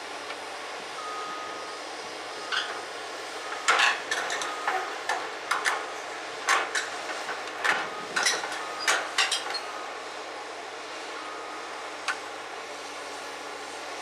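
Komatsu PC200LC excavator's diesel engine running steadily while heavy steel-on-steel clanks ring out irregularly, about a dozen over several seconds and one more later, as the machine's tracks and bucket bear on the gondola car's steel rim and hauls itself up into the car.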